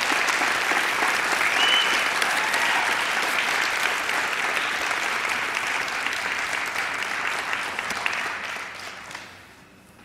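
Audience applauding steadily, dying away about nine seconds in.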